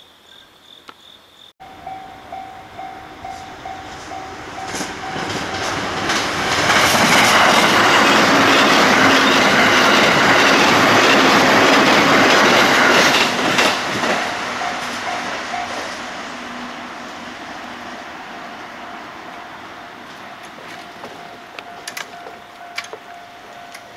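Crickets chirping for the first second or two. After that an electric passenger train passes close by, its noise and wheel clatter building, loudest for several seconds in the middle, then fading away. A steady hum runs underneath, and a few sharp clicks come near the end.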